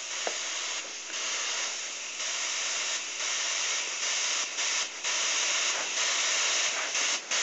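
Double-action airbrush spraying white paint as a steady hiss, with a few short breaks, while highlights are worked up.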